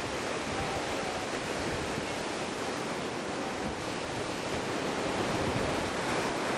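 Sea surf breaking against a rocky shore: a steady rushing wash of waves.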